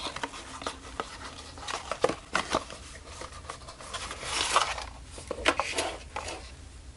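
Paperboard packaging being handled and opened: scattered taps, scrapes and rustles of cardboard, with a longer sliding scrape about four seconds in as the inner tray is drawn out of the box.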